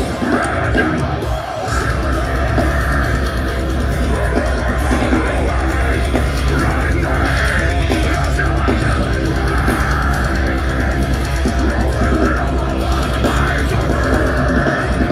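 Deathcore band playing live: heavy guitars and bass over a fast drum kit. There is a brief break about a second and a half in, then the full band comes back in.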